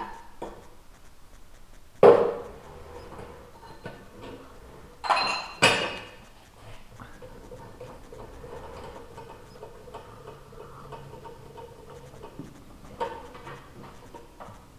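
Metal clanks as a motorcycle cylinder barrel and its steel clamp bar are handled on a boring machine's steel table: one loud ringing clank about two seconds in, two more just after five seconds, and a short clatter near the end. A faint steady hum runs in between.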